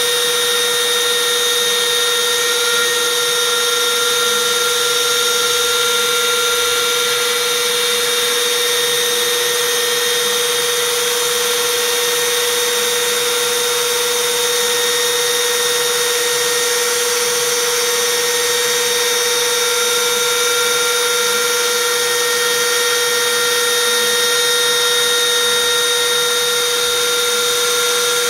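Shapeoko 3 XXL CNC router's spindle motor running at speed with a steady whine while its small end mill cuts a profile through plywood, with a hiss of cutting and no change in pitch.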